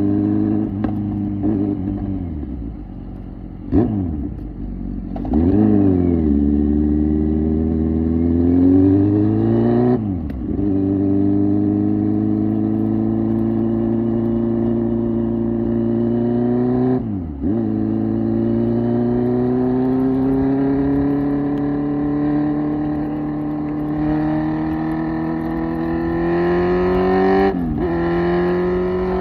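Kawasaki Z900's 948cc inline-four through an SC Project exhaust. The revs fall in the first few seconds, with two quick blips of the throttle on downshifts around 4 to 6 seconds in. Then the bike pulls hard, rising steadily in pitch and shifting up three times, at about 10, 17 and 27 seconds.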